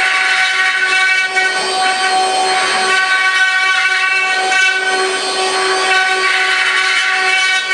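Eight-spindle wood CNC router running, its spindles giving a steady high whine. The noise of the bits cutting into the wood swells and fades every second or two.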